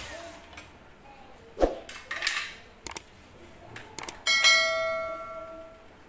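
A drill and plastic drilling jig being handled and set down: a thump, a scrape and a few sharp knocks, then a metal piece struck and ringing like a bell, fading over about a second and a half.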